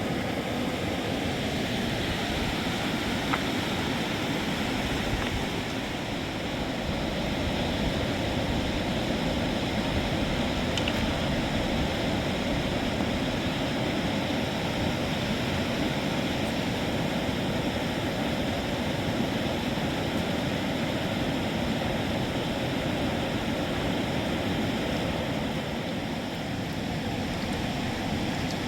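Steady rushing of flowing water, an even noise without breaks.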